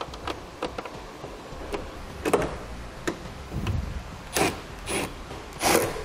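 Plastic car tail light assembly being refitted to the body: rubbing and light clicks, then a few short, sharp scrapes in the second half.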